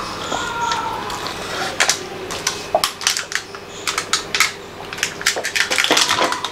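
Thin disposable plastic cups held in the mouth, crinkling and clicking irregularly as water is drunk from them without hands, with a little sipping of water.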